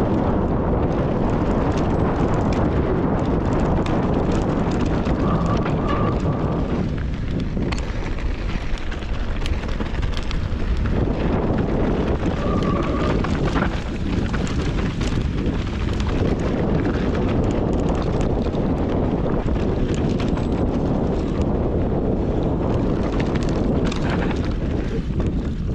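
Wind buffeting the camera microphone during a fast mountain-bike descent, with a steady stream of clicks and rattles from the bike over rough trail. The noise eases briefly about a third of the way in.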